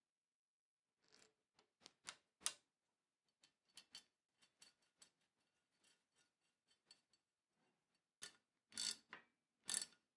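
Small metallic clicks and taps from a first-generation Shimano Dura-Ace sidepull brake caliper being handled and fitted to a steel bicycle fork crown: a few scattered clicks at first, then several louder clicks near the end.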